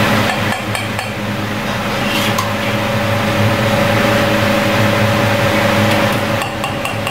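Steady drone of a restaurant gas wok range and kitchen fan, with a metal ladle scraping and clinking against the wok and a metal bowl a few times as fried rice is scooped out, most busily near the end.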